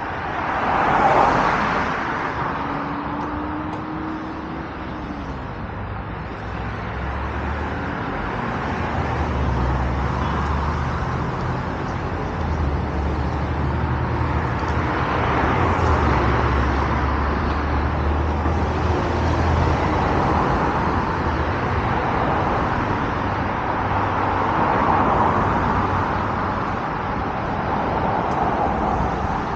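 Road traffic on a multi-lane road: cars passing one after another, swelling and fading every few seconds over a steady low rumble, the loudest pass about a second in.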